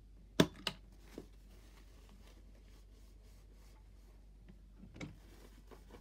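Plastic door of a toy front-loading washing machine clicking open: a sharp click with a second close behind it and a smaller one a moment later, then a soft knock near the end as the open door is handled.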